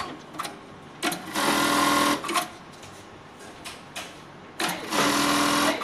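Jack computerized bartack machine sewing two bartacks: two bursts of rapid stitching about a second long each, one near the start and one near the end, with a few short clicks between them.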